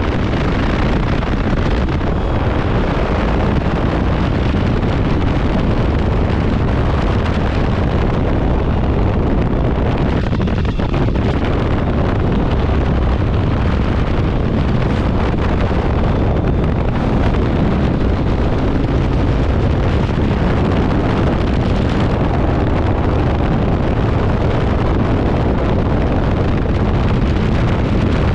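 Steady wind rush on the microphone of a motorcycle-mounted camera at road speed, with the motorcycle's engine and tyre noise underneath.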